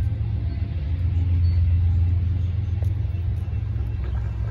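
Steady low rumble of road traffic, cars idling and moving at a railroad crossing as the gates go up.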